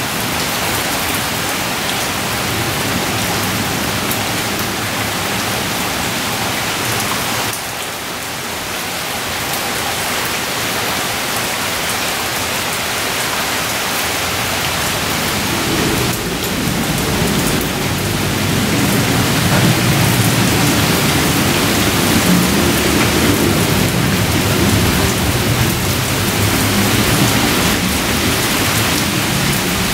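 Heavy rain pouring down steadily. About halfway through, a long, low rumble of thunder comes in and keeps rolling as the rain goes on.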